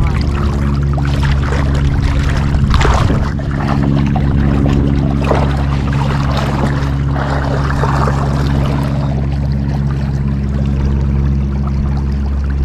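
River water rushing and splashing, with irregular splashes and trickles over a steady low hum.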